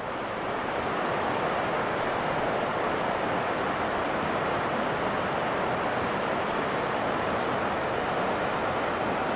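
Steady rushing of creek water running through a riffle, an even wash of sound that swells a little at the start and then holds.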